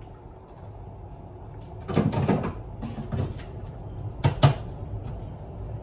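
Kitchen refrigerator door opened and shut: a rustling clatter about two seconds in, then two sharp knocks a little past four seconds as the door closes.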